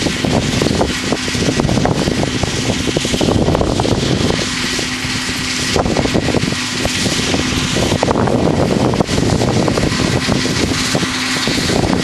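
Wind buffeting the microphone in gusts, over the faint steady hum of a combine harvester working the field.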